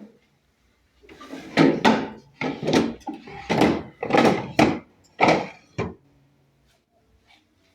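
An uneven run of about eight short wooden knocks and thuds over some five seconds, then quiet.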